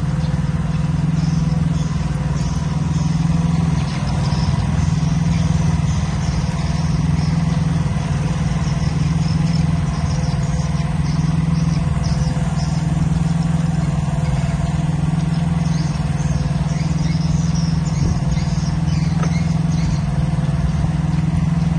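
An engine running steadily at one constant speed, an even low hum with no change in pitch.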